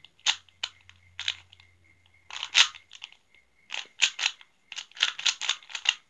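A 3x3 Rubik's Cube turned rapidly by hand during a fast solve: sharp plastic clicks and clacks as the layers snap round, in quick irregular runs with short pauses between them.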